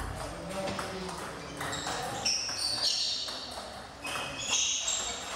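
Table tennis rally: the ball clicking off the table and bats several times a second, each hit with a short high ring, with more ball clicks from a neighbouring table.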